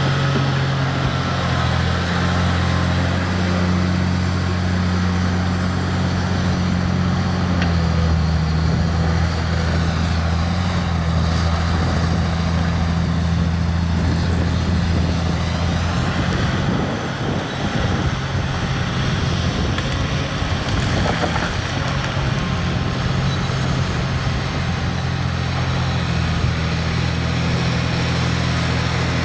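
Heavy diesel engines of a Komatsu PC350LC excavator and a Volvo A25 articulated dump truck running steadily while the excavator digs and loads the truck. Midway the steady engine note gives way to a rougher, noisier sound for a few seconds before settling again.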